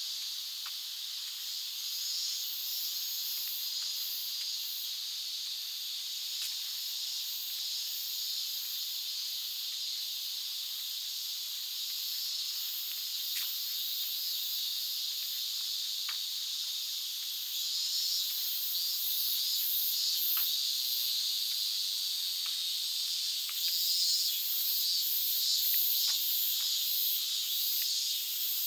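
Cicadas singing as a continuous high hiss that pulses in waves, getting louder in the second half, with a few faint ticks now and then.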